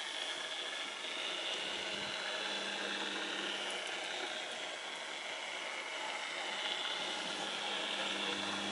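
A small motor whirring steadily with a hiss, its low hum swelling and fading a few times.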